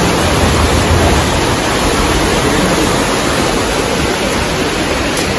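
A shallow river rushing steadily over rocks.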